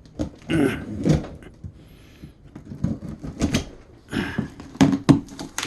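Cardboard box being opened by hand: flaps pulled back with scraping, rustling noise and several sharp knocks, the loudest a little before the end.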